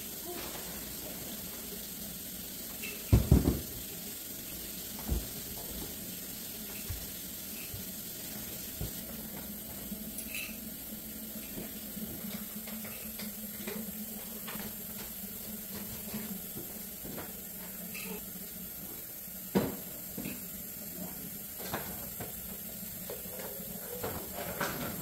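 Plastic toys being picked up, handled and set down on a hard floor: scattered knocks and light clatters, with a heavier thump about three seconds in and another a little before twenty seconds. A steady hiss runs underneath.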